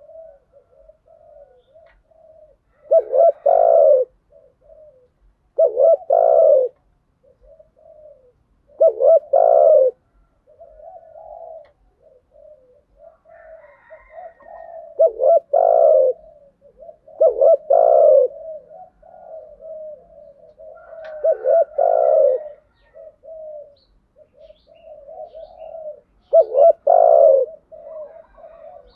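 Spotted doves cooing. Loud phrases of two or three notes come every few seconds, about eight in all, with softer cooing in between.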